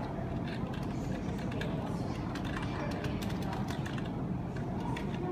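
Office background noise: a steady hum with scattered light clicks.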